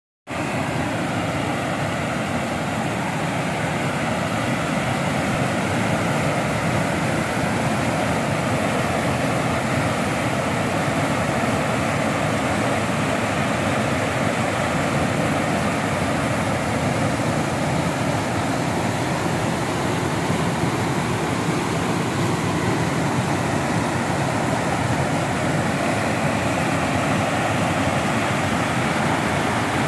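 River rapids rushing over stepped rock ledges: a steady, loud, unbroken rush of white water.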